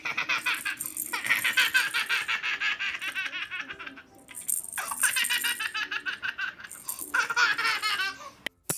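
A baby laughing in four bouts of rapid giggles, with short breaks between them.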